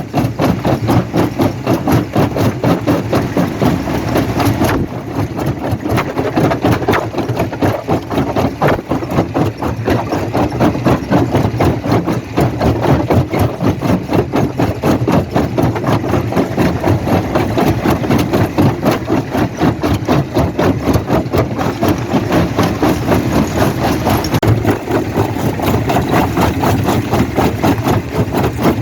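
Heavy rock-crushing machinery, a quarry jaw crusher, running steadily with a fast throbbing beat.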